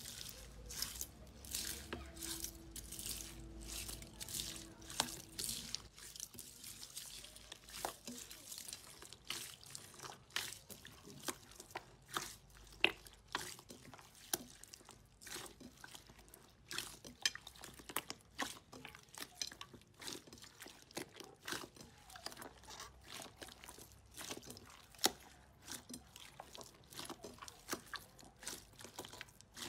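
Hands kneading and squeezing clear green slime packed with small beads, giving irregular rapid clicks, pops and wet squishing.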